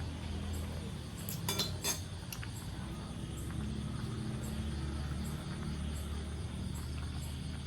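Utensils clinking against dishes or a pot a few times about a second and a half in, over a steady low hum and crickets chirping faintly in a regular high-pitched pulse about twice a second.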